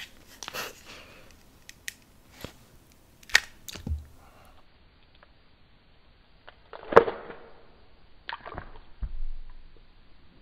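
A thin, hard stick-like object snapped in two close to the microphone, making one loud sharp crack about seven seconds in, then a shorter crackle. Scattered small clicks and taps come before it.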